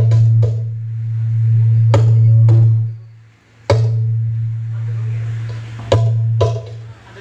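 Percussion strikes played loud through a large sound system during its sound check, over a steady deep bass hum that cuts out briefly about three seconds in and comes back with a hit.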